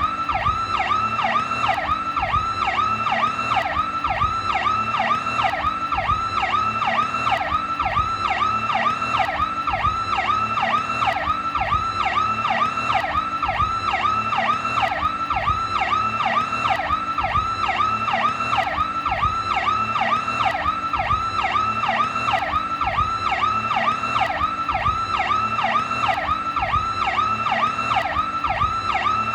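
New York police car's Powercall electronic siren sounding continuously in a fast yelp, its pitch sweeping up and down about three times a second.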